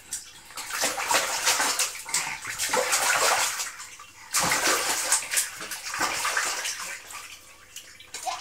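Water splashing in a small plastic baby bath as a baby slaps at it with its hands, in a run of repeated splashes with a short break a little before halfway.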